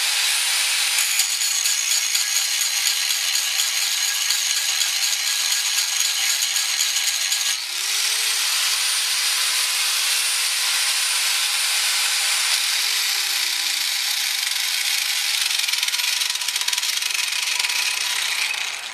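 Corded angle grinder grinding through the stuck steel bolt and bracket on a riding mower's seat pan: a steady motor whine over a harsh grinding hiss. About seven and a half seconds in the grinder briefly cuts out and spins back up, and it stops near the end.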